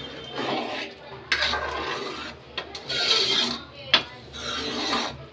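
Metal ladle stirring and scraping in a steel pot of cooked masoor dal, in several rasping strokes, with a sharp knock against the pot about four seconds in.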